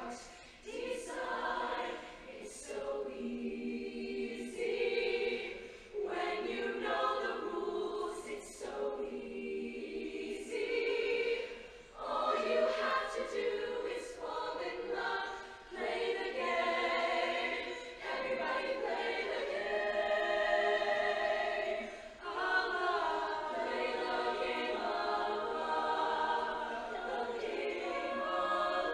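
Show choir of mixed voices singing in harmony, in phrases broken by short breaks every few seconds.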